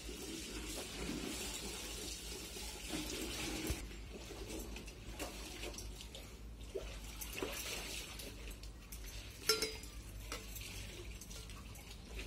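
A hand stirring pakhala (rice soaked in water) in a steel bowl, the water swishing for the first few seconds. Then come scattered light clinks and scrapes of fingers on steel bowls and plates, with one sharper clink about nine and a half seconds in.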